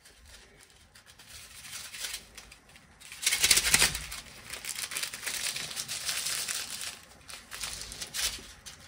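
A small plastic bag of diamond-painting drills being handled: crinkling of the bag and a dense rattle of tiny drills pouring into a small plastic storage bottle, loudest from about three seconds in to about seven.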